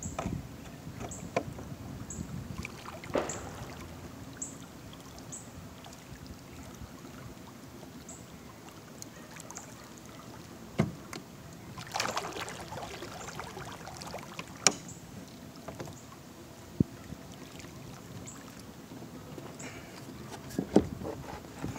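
Electric trolling motor on a kayak running steadily with a low hum, water washing along the hull, and a few sharp knocks, the loudest about 15 seconds in.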